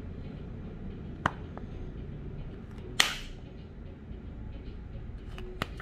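Plastic e-liquid bottle and vape tank being handled while the tank is top-filled: a sharp click about a second in, then a louder click with a brief hiss about three seconds in, and a couple of small ticks near the end, over a low steady hum.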